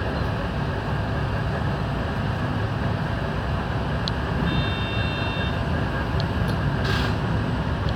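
Electric commuter train running, heard from inside the front car: a steady low rumble of wheels and motors. A brief high tone comes about halfway through, and a short hiss near the end.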